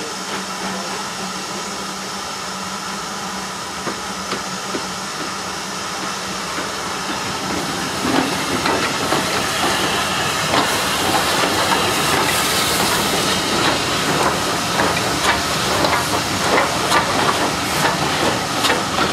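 Steam locomotive No.777, a Southern Railway N15 King Arthur class, passing slowly with a second steam locomotive and a passenger train, hissing steam. The hiss and rumble grow louder as the engines draw level about halfway through, then the coaches' wheels click over the rail joints.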